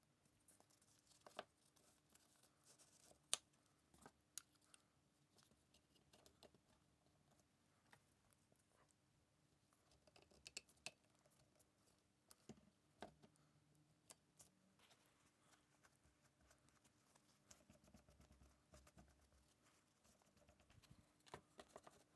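Faint, scattered clicks and taps with light scraping between them, the noises of small wooden pieces being handled and worked by hand; one sharper tap a few seconds in is the loudest.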